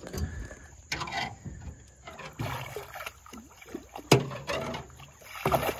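Water splashing and knocking against a boat hull as an arrowed fish is worked at the surface beside the boat, with a sharp knock about four seconds in.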